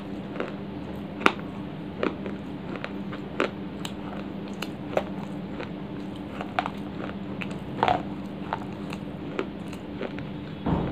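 Dry baked clay being bitten and chewed close to a microphone: sharp crunches at irregular intervals, about one a second, over a steady low hum.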